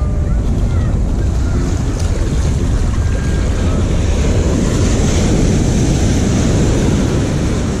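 Wind buffeting the microphone over surf breaking and washing up the sand: a steady, heavy rumble with the wash of the waves on top.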